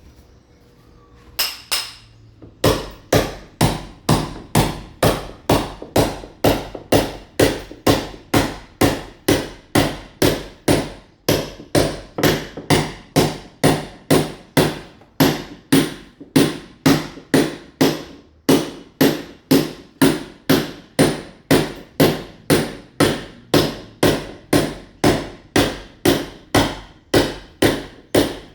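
Club hammer blows chipping a masonry wall to roughen it before laying ceramic tile. A couple of strikes come about a second and a half in, then steady, evenly paced blows follow at about two a second.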